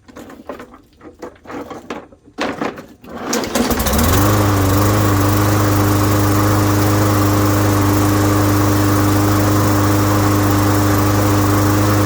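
Knocks and clatters, then the push mower's single-cylinder Briggs & Stratton E450 engine catches about four seconds in, comes up to speed and runs at a steady speed. It is running now that its clogged carburetor jet has been cleaned.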